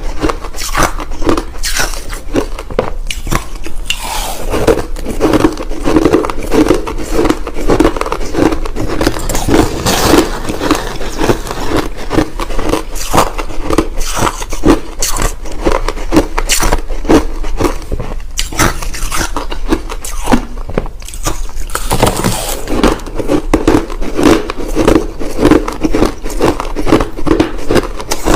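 Crushed ice being bitten and chewed close to the microphone: loud, dense crackling crunches, with long stretches of steady chewing rhythm.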